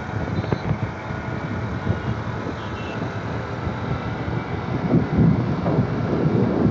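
Wind rumbling on the microphone of a moving motorcycle, with the bike's engine and road noise in highway traffic underneath. The gusty rumble swells about five seconds in.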